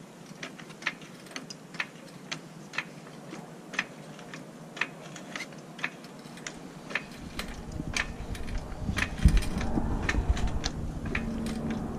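Sharp, regular ticks about once a second. From about seven seconds in, low rumbling handling noise builds, with a heavy thump about nine seconds in.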